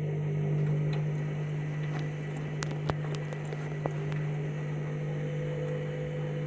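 Washing machine motor turning an overloaded drum in the main wash, a steady low hum with a few light clicks in the middle.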